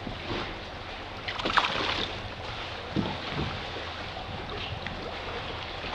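Water lapping and sloshing around a kayak, with a brief louder burst of noise about a second and a half in and a short knock near the middle.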